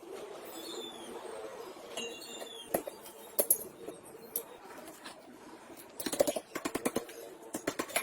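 Light metallic clicks and clinks, scattered at first, then a quick run of rapid clicks from about six seconds in.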